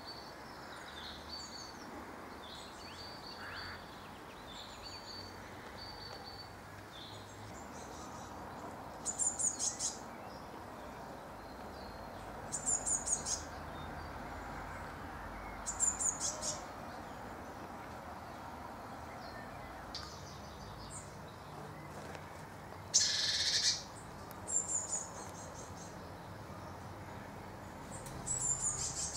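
Blue tit nestlings inside a wall-mounted ashtray used as a nest box, chirping in short rapid bursts every few seconds, with one louder burst about three quarters of the way through. Short thin calls come in the first few seconds.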